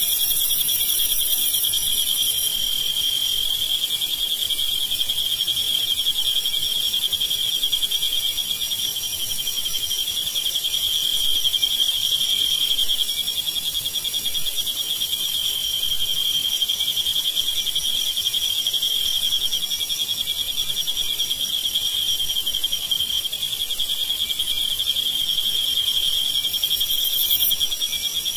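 Crickets singing in chorus, many overlapping into one steady, high-pitched trill, with a fainter high hiss above it.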